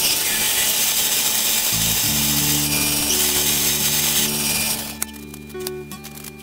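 Twist drill in the tailstock of a South Bend lathe boring into a metal workpiece turning in the chuck: a steady cutting hiss that stops about five seconds in.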